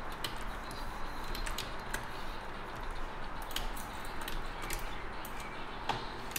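Light clicks and taps from a computer keyboard and pointing device, about a dozen at uneven intervals and one sharper click near the end, over a steady background hiss.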